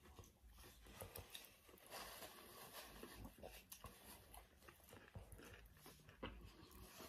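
Faint chewing and lip-smacking of people eating a stacked meat sandwich: soft, irregular wet clicks.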